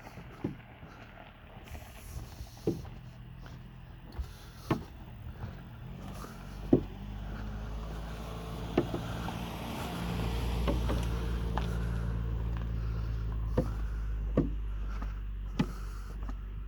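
A vehicle's engine running with a low hum that grows louder from about six seconds in. Scattered sharp knocks or rattles sound over it.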